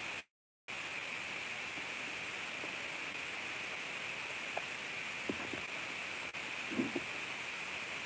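Steady background hiss that drops out completely for about half a second just after the start, with a few faint short sounds around five and seven seconds in.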